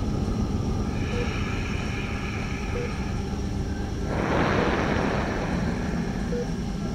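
Steady low rumble, with a swell of hiss a little after four seconds in that lasts under a second, and faint short blips repeating about every second and a half.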